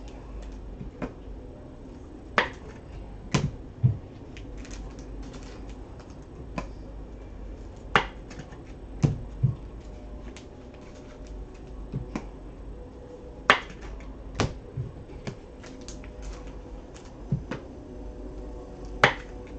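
Trading card packs and cards being handled on a table while a box is opened: scattered, irregular clicks and taps, several of them louder knocks.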